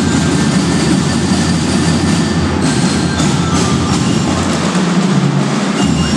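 School drum and lyre corps playing loudly: massed drums with bell-lyres.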